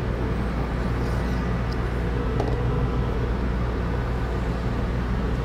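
Steady low hum of a running motor, with a few faint, light scrapes of a hand-held ceramic stone passed along the outer edge of a skate blade to take off the burr.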